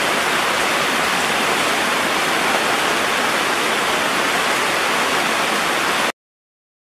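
Loud, steady rushing hiss like running water, with no pitch or rhythm, cutting off abruptly about six seconds in.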